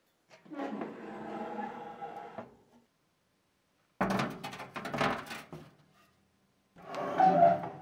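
Door of a Brandt countertop oven being worked. First comes a drawn-out scraping creak, then a clatter of sharp metal clicks about halfway through, and a shorter squeaking thunk near the end as the door shuts.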